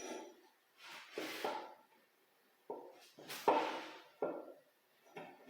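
Long-soled hand plane taking a few strokes along a board's edge: short hissing, scraping passes with sharp wooden knocks at their starts.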